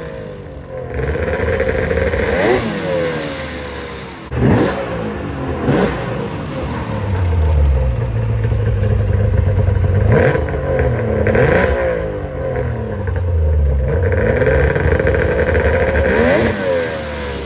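Arctic Cat ZRT snowmobile's three-cylinder two-stroke engine running and blipped up and down in a series of quick revs, about half a dozen, with steadier running between them. The owner says it is starting to lean out and run better on fresh gas, though its idle still sits very low.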